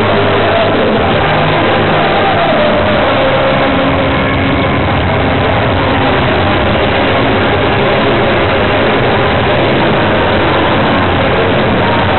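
Loud, steady stadium crowd noise mixed with music over the public-address system, as the winning team lifts the trophy.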